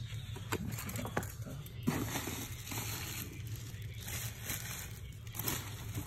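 Packaging rustling and crinkling as items are unwrapped by hand, with a few light clicks and taps.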